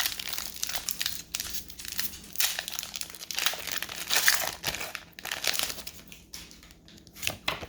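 Foil Pokémon booster pack wrapper crinkling as it is torn open and handled, a dense irregular crackle that thins out over the last couple of seconds.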